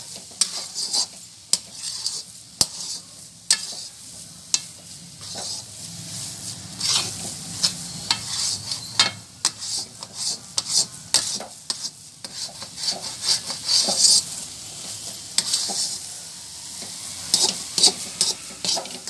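Metal spatula scraping and knocking against a metal pan in quick, irregular strokes. It is stirring a thick, crumbly coconut burfi mixture of grated fresh coconut and condensed milk that is being roasted dry, until it starts to leave the sides of the pan.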